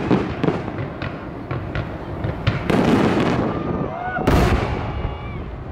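Aerial fireworks shells bursting overhead: a series of bangs and crackles, with the loudest boom a little over four seconds in.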